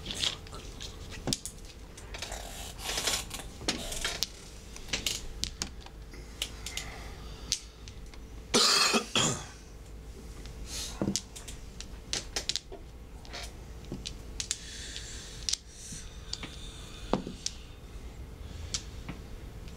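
Mahjong tiles clicking and clacking irregularly as players draw and discard on the table. A louder noisy burst stands out about halfway through, over a faint steady hum.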